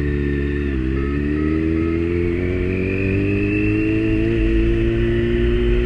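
Kawasaki motorcycle engine pulling away, its pitch dipping briefly about a second in and then climbing slowly and steadily as the bike gathers speed.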